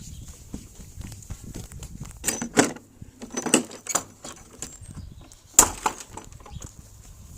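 Irregular knocks and scuffs, a few in quick clusters, with the loudest single knock about five and a half seconds in.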